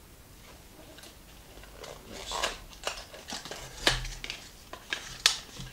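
A small cardboard box being opened by hand: card rustling and scraping, with short clicks and two sharp snaps, starting about two seconds in.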